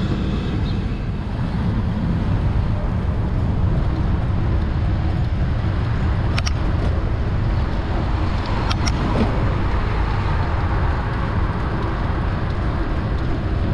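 Steady city road traffic with a heavy low rumble of wind on the microphone of a moving bicycle. A sharp click comes about six and a half seconds in, and two more near nine seconds.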